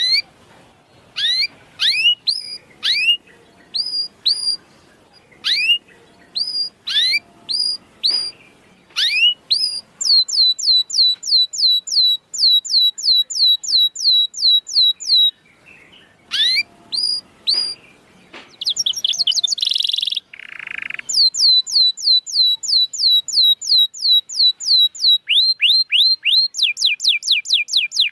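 Domestic canary singing. Rising whistled notes come about once a second at first, then the song breaks into fast runs of repeated notes, with a short buzzy trill about two-thirds of the way through.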